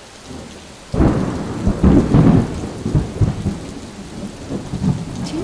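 Thunder: a sudden crack about a second in, then a loud, uneven rumble that slowly fades, over a steady hiss of rain.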